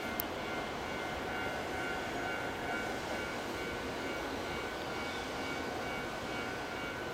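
Steady railway-station background noise: an even rumble with a few faint, steady whining tones, and a single short click just after the start.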